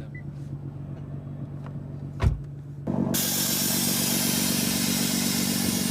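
Car sounds: a low steady hum with a single thump a little over two seconds in, then, about three seconds in, a car engine starts running, steady and much louder, with a strong hiss over it.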